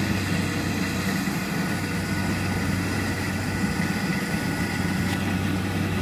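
Rice combine harvester's engine running steadily as it cuts through the crop: an even, unbroken drone with a thin constant whine above it.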